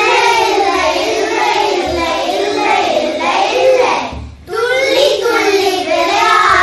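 Young children singing a song. The singing breaks off briefly about four seconds in, then carries on.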